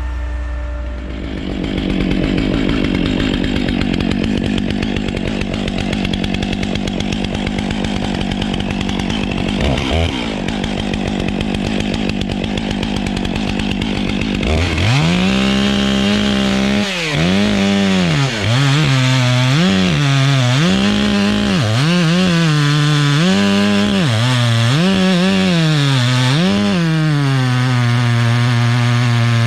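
Stihl MS 660 two-stroke chainsaw with a 36-inch bar, running loud and rough at first. From about halfway it revs up and down repeatedly, then holds at full throttle near the end, as for shelf cuts in oak.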